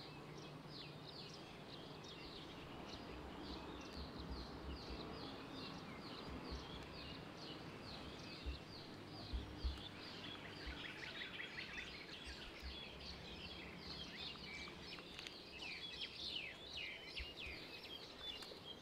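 Birds chirping: a dense run of quick, falling chirps that grows busier after the middle, with a few dull low thumps around the middle.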